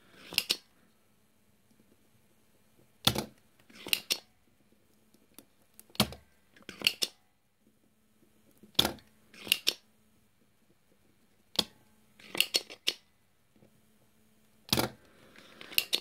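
Spring-loaded desolder pump being cocked and fired again and again to suck melted solder off the switch pins of a mouse circuit board. Each stroke gives a pair of sharp clicks under a second apart, about every three seconds, five times over.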